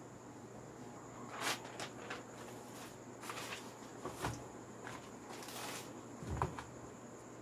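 A paper notebook being handled: a series of short, soft rustles of its pages and cover, with a brief knock near the end as something is set against the desk, over a faint steady hum.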